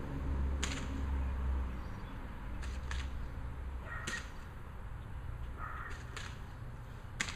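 Airsoft guns firing single shots, about seven sharp pops spaced irregularly.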